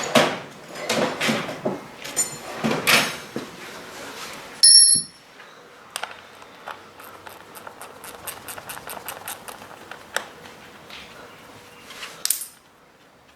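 Metal tools scraping and clanking against a dirt-bike wheel rim and tyre while the front tyre is worked on the rim, with a loud ringing metallic clank a little under five seconds in, then a run of quick light clicks and one last scrape near the end.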